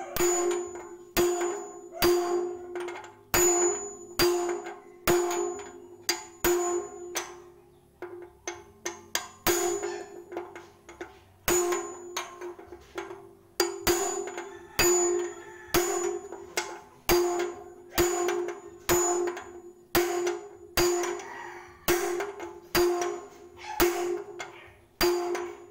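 Hammer blows on a steel socket used as a driver, seating a bearing cup into the hub of a bagger concrete mixer's drum. There is about one blow a second, each with a metallic ring, and lighter, quicker taps briefly about eight seconds in.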